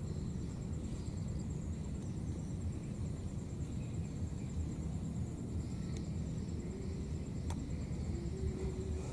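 Steady low outdoor rumble with a thin, high insect trill running through it, and one sharp click about seven and a half seconds in.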